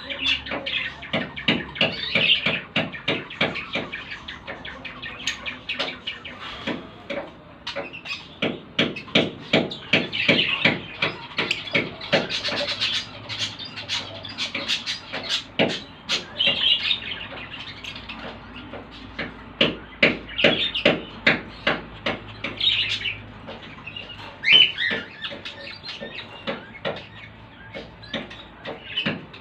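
Lovebirds chirping and calling: runs of short, sharp chirps in quick bursts, with louder shrill calls now and then.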